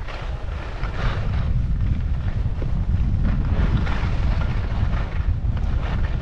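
Wind rumbling over the microphone while skiing downhill, with skis hissing and scraping across the snow in swishes every second or so.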